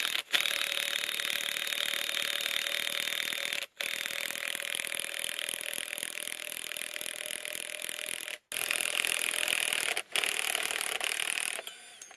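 Cordless impact wrench undoing the 16 mm top nut of an old rear strut, hammering in long stretches. The trigger is let off briefly three times.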